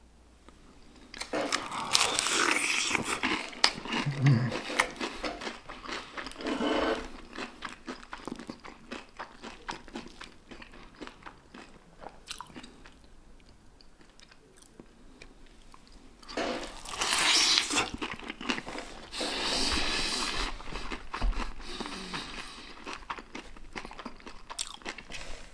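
Biting and chewing crispy fried chicken close to the microphone, the breading crunching. The loud crunching comes in two spells, about a second in and again past the middle, with quieter chewing and small clicks between.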